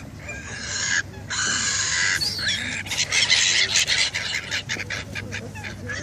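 A crowd of waterbirds calling, black-headed gulls and greylag geese among them: harsh squawks, two longer ones at first, then many short calls overlapping thickly from about two seconds in.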